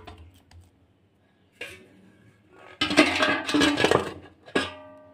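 A stainless steel plate clattering and scraping against a steel bowl as it is set over the bowl as a cover, with a sharp clink about 4.5 s in that leaves the metal ringing briefly.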